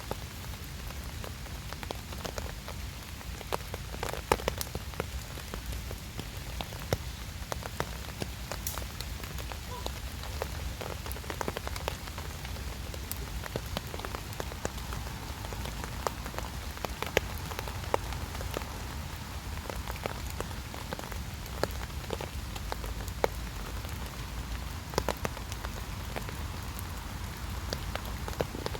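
Steady rain falling, with frequent sharp clicks of single drops scattered throughout and a constant low rumble underneath.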